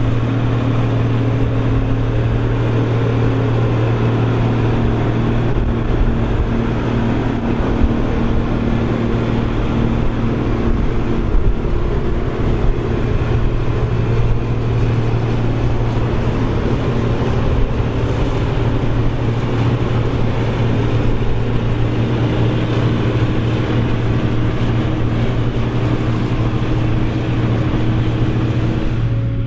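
Krone BigX 700 self-propelled forage harvester working at full power in corn, its engine a steady, loud drone under heavy load, with the rushing noise of the machine.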